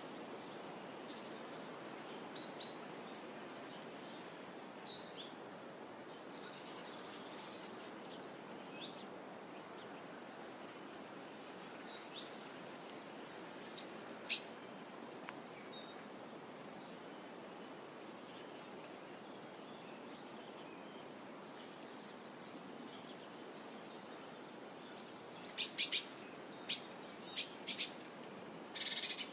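Birds chirping now and then over a steady soft wash of gently rippling water, with a quick run of sharp, louder chirps near the end.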